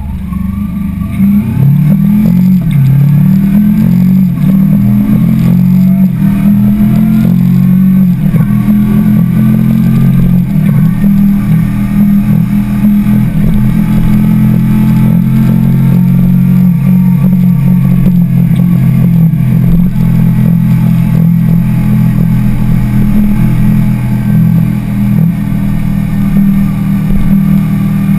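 Kawasaki sport motorcycle engine getting louder about a second in and rising in pitch through a gear change or two, then running steadily at cruising speed, with wind noise over the microphone.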